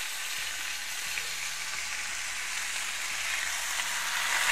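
Bacon-wrapped pineapple slices frying in oil in a hot cast-iron pan, with a steady sizzle.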